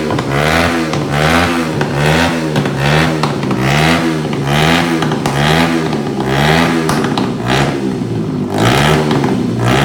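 Shelby Renz 150cc single-cylinder two-valve four-stroke motorcycle engine revved in quick repeated throttle blips, about one and a half a second, its pitch rising and falling with each, with a steadier stretch about seven seconds in.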